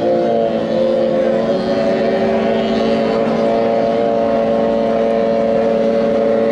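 15 hp outboard motors of small racing boats running at racing speed, a steady pitched drone that holds the same pitch.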